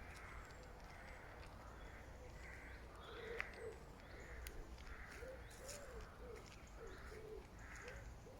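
Faint birdsong: one bird repeats a short higher call about every half second, and from about three seconds in another gives a run of low, soft, arched notes.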